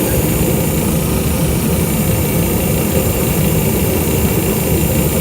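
Reddy 60,000 BTU kerosene forced-air torpedo heater running: fan motor blowing and burner firing with a steady low rumble and hiss. It is running with its photocell jumpered out, because the photocell is believed bad and would otherwise keep the heater from starting.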